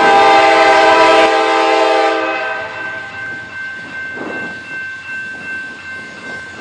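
Diesel freight locomotive sounding its multi-note air horn in one blast of a steady chord for about two and a half seconds, then the locomotive and train running as it approaches.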